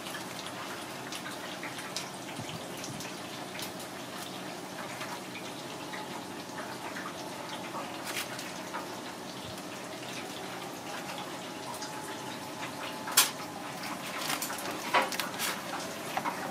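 Steady rushing background noise, with light clicks and taps of tongs and a spatula against a metal baking tray; the sharpest click comes about thirteen seconds in, another about two seconds later.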